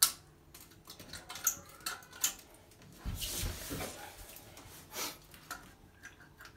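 Scattered clicks and knocks of a hand and a camera snake cable against the porcelain and water of a toilet bowl, while reaching into the trap to free a lodged object; a brief swish of water about three seconds in.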